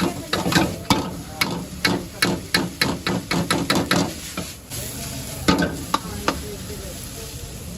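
A metal spatula knocking and scraping rapidly in a hot pan while food is stirred and fried, with sizzling underneath. The knocks come about five a second, stop about four and a half seconds in, and a few more follow about a second later.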